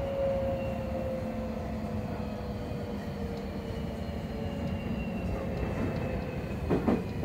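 Inside a Seibu 40000 series train, the whine of its Toshiba IGBT-VVVF inverter and permanent-magnet synchronous motors slides slowly down in pitch over the running noise as the train slows. Near the end there is a short loud burst, likely a level-crossing bell passing by.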